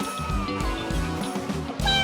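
Background music: a guitar-led tune with a steady beat.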